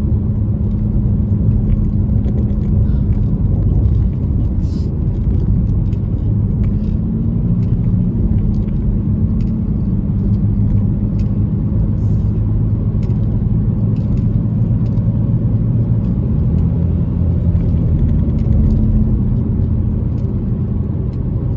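Steady engine drone and road rumble heard from inside a moving car's cabin, with the engine note rising slightly and easing back a couple of times.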